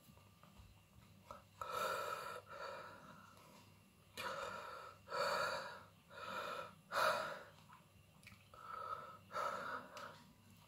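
A man breathing hard in and out through the open mouth, a short puff about every second, to cool the burn of a whole 7 Pot Douglah chilli.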